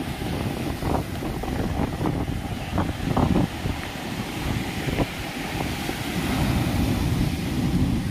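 Sea surf breaking and washing up a sandy beach, with wind buffeting the microphone in a steady low rumble.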